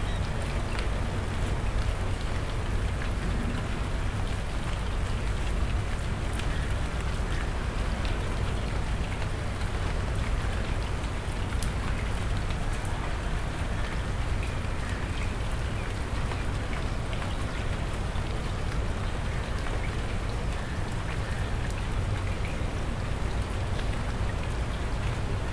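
Steady rain falling, drops pattering and splashing into puddles on concrete as a dense run of small ticks over an even hiss, with a steady low rumble underneath.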